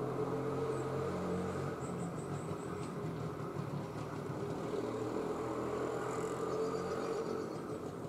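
Steady low engine-like rumble, as of motor traffic, with a short run of faint high notes about two seconds in.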